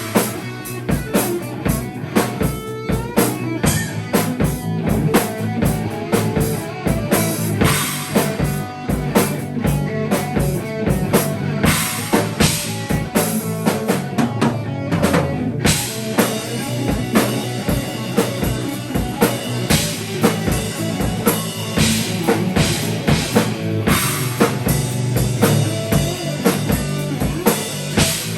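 A band improvising live in a studio: a drum kit keeps up a steady beat with bass drum and rimshots, over sustained low notes and other instruments.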